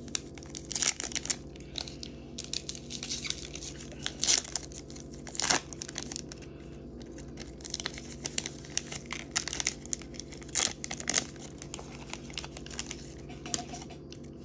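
Foil wrapper of a Pokémon card booster pack being torn open and crinkled by hand, in irregular rustling crackles, over a low steady hum.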